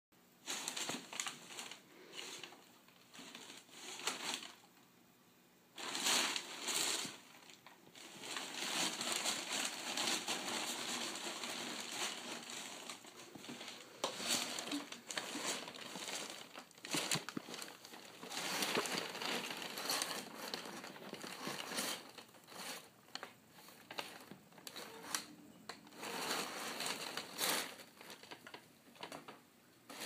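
Crumpled brown kraft packing paper crinkling and rustling as a cat burrows and shifts about in it, in irregular bursts with a short pause about five seconds in.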